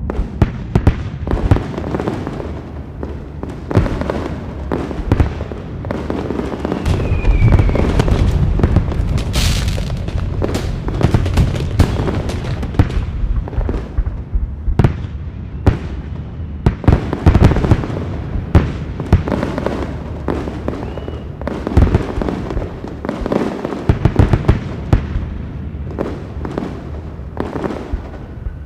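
Fireworks display: a dense, continuous barrage of bangs and crackles over a low rumble, with a short falling whistle about seven seconds in and a brief high hiss a couple of seconds later.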